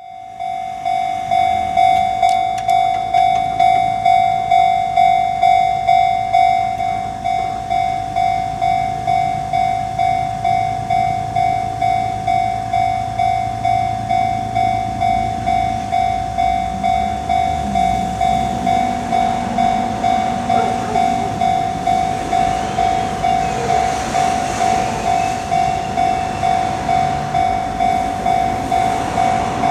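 Railway level-crossing warning bell on the Keihan Ishiyama-Sakamoto Line ringing kan-kan, a steady pitched chime at about two and a half strokes a second. Under it an electric train rumbles through the crossing during the first half.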